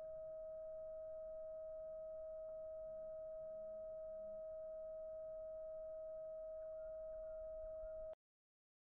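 A steady, single-pitched electronic tone with a fainter overtone an octave above, held without any change in pitch and cutting off abruptly about eight seconds in.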